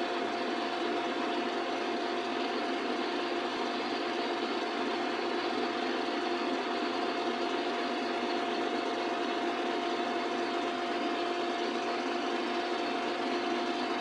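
A power tool or machine tool motor running steadily, a constant whirring hum with a fixed tone in it that does not change.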